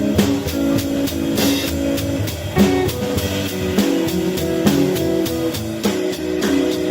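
Music: a drum kit playing a steady beat with guitar.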